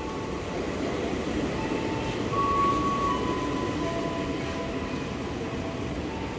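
Tokyo Metro 6000 series electric commuter train pulling in along the platform: a steady rumble of wheels and running gear, with several steady high whining tones that come and go at different pitches.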